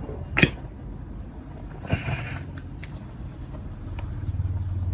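1970 Zippo lighter's lid and hinge clicking, with two sharper clicks about half a second and two seconds in. It is the crisp lid sound prized in a vintage Zippo.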